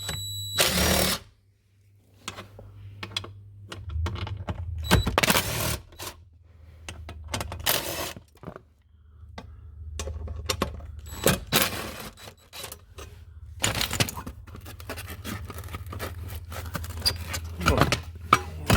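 Hand tools and a car's interior trim panel being worked on: repeated clicks, clinks and scrapes with several short bursts of rattling, over a steady low hum.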